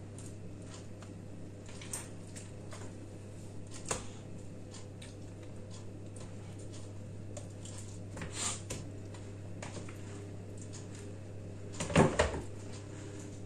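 Kitchen handling noises: light clicks and taps as food and dishes are handled, with a louder knock or clatter about twelve seconds in, over a steady low hum.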